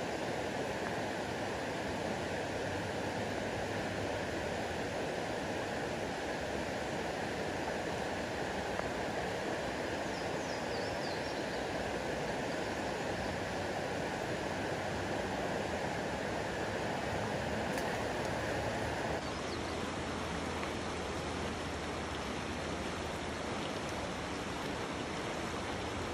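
River water rushing steadily, with an abrupt shift in its tone about three-quarters of the way through.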